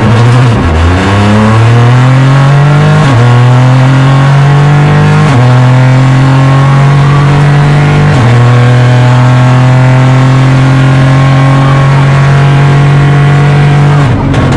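Opel Corsa Rally4's three-cylinder turbo engine heard from inside the cockpit at full throttle, pulling up through a sequential gearbox. It changes up sharply at about 3, 5 and 8 seconds in, holds a long, steady pull in fifth gear, and lifts off near the end.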